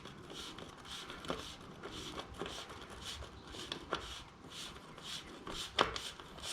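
Old bicycle bottom bracket being unscrewed from the frame with a bottom bracket removal tool: irregular scraping and clicking of the tool and metal threads, with a few sharper clicks.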